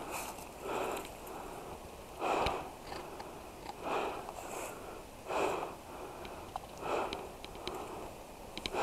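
A person breathing heavily close to the microphone, one breath about every second and a half, with faint clicks of twigs and brush in between.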